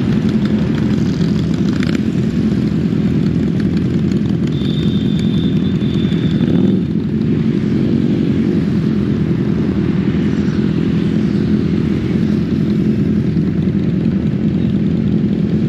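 Kawasaki Z800 inline-four engine running steadily at low cruising speed, heard from on the bike itself. A short high-pitched beep comes about five seconds in.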